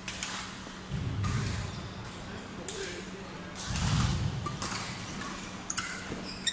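Badminton doubles play on an indoor court: dull thuds of footfalls, with the loudest near the middle, and short high squeaks of shoes on the court floor near the end, over a steady low hum and indistinct voices echoing in the hall.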